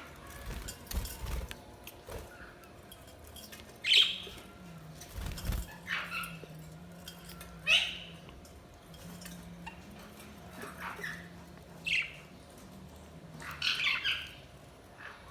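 Budgerigars giving short, sharp chirps and squawks, one every second or two, with a couple of soft low thumps and a faint steady hum underneath.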